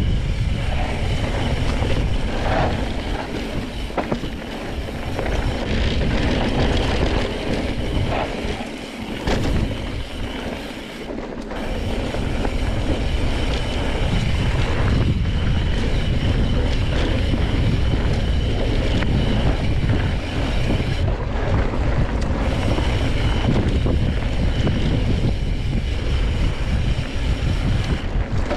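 Wind buffeting the microphone and mountain-bike tyres rolling over dirt singletrack, a steady rushing rumble that eases for a couple of seconds about nine seconds in.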